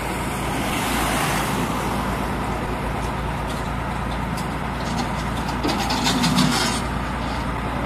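Diesel engine of a New Holland 8060 combine harvester running steadily at low revs as the tracked machine creeps on the trailer deck. There is a hiss about a second in and a short burst of clattering knocks around six seconds, the loudest moment.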